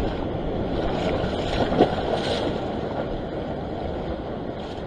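Wind buffeting the microphone over the wash of surf breaking on a rock shelf, a steady rumbling noise, with a brief bump a little under two seconds in.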